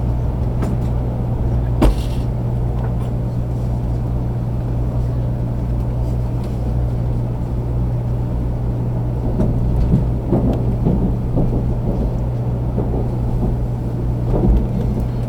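Steady running noise inside a 500 series Shinkansen car: a continuous low rumble with a steady hum, and a single sharp click about two seconds in.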